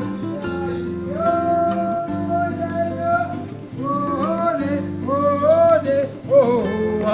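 Background music: a melody that slides up and down in pitch over held chords.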